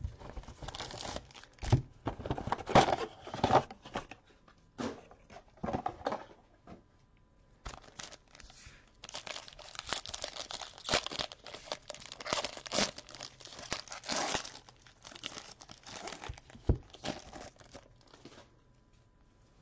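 Trading card box and pack wrapping being torn open and crinkled by gloved hands, in irregular crackling rustles that are busiest in the middle, with a few sharp knocks as the box and cards are handled.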